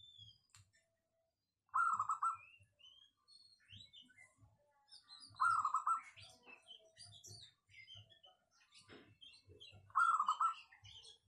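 Caged zebra dove (perkutut) cooing: three short, rapid, trilled coos, roughly four seconds apart. Fainter, higher chirping runs in between.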